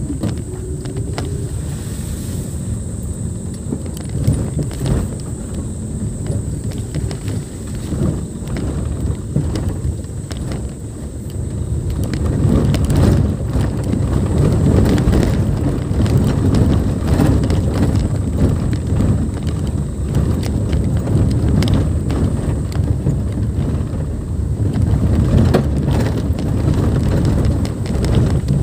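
Car driving slowly over a rough, muddy dirt forest track: a low rumble of engine and tyres with frequent knocks and jolts from the ruts and stones. It gets louder about twelve seconds in.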